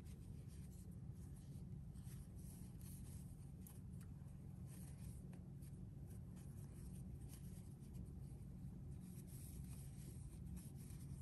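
Faint scratching and rustling of a Pony Easy Grip crochet hook being worked through yarn stitches, over a low steady room hum.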